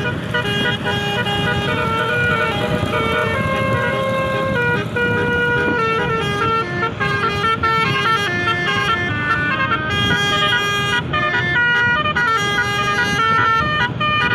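Tour bus's Basuri 'telolet' multi-tone air horn playing a quick melodic tune of stepped notes, jumping between pitches throughout, over a low rumble of engine and traffic.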